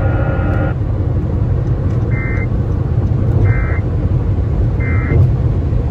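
Three short, identical digital data bursts about a second apart: the Emergency Alert System end-of-message (EOM) tones closing a severe thunderstorm warning broadcast. They play through a radio over a steady low vehicle rumble.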